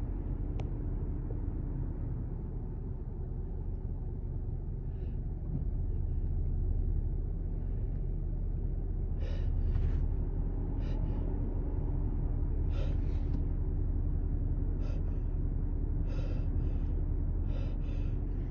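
A person's short, sharp inhaled gasps as a sneeze builds up: about a dozen catches of breath, coming closer together toward the end, over a steady low rumble.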